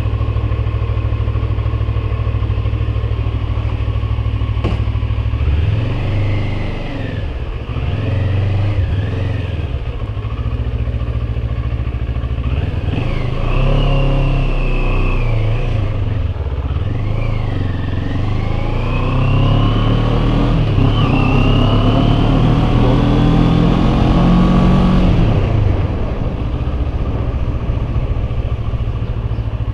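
CFMoto 400NK motorcycle's parallel-twin engine running under way, steady at first, then rising in pitch again and again with drops between, as it accelerates and shifts through the gears. Loud wind noise on the microphone runs underneath.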